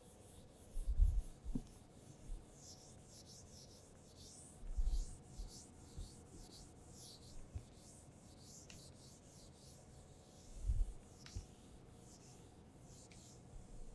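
Whiteboard eraser wiping across a whiteboard in repeated back-and-forth swishing strokes, with a few dull low thumps in between.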